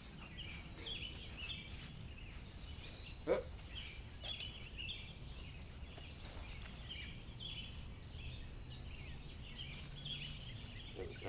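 Small birds chirping over and over in the background, over a steady low hum, with one short sharp knock about three seconds in.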